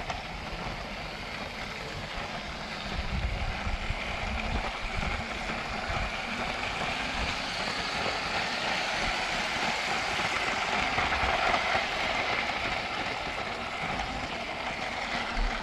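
Lego 9V train running on plastic track: a steady motor whine and wheel rattle that swells as the train comes closest, then eases off. Wind buffets the microphone throughout.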